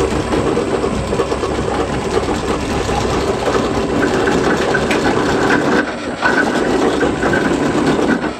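Drill press running, its large bit cutting through a metal engine bracket coated with cutting lubricant: a steady motor and cutting noise, with a higher cutting tone joining about four seconds in and briefly easing off near six seconds.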